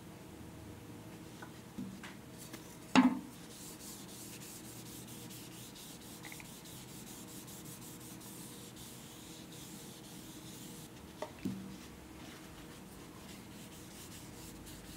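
Shop towel wiping walnut oil onto a sanded wooden spoon: a faint, quick rubbing hiss of repeated strokes. There is a sharp knock on the bench about three seconds in, the loudest sound, and lighter knocks near the start and near the end.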